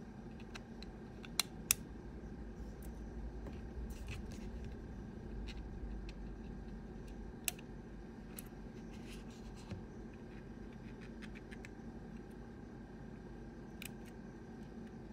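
Small plastic clicks and scratches as a Hubsan Zino Mini Pro drone battery shell is handled and worked on by hand, with two sharp clicks about a second and a half in and another about seven and a half seconds in, over a faint steady hum.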